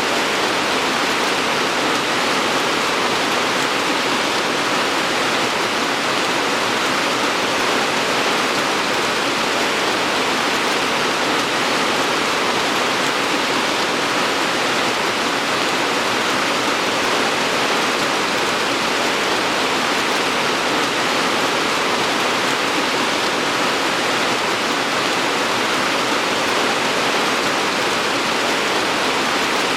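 Steady rain falling as a continuous, even hiss, with no separate drops or pauses standing out.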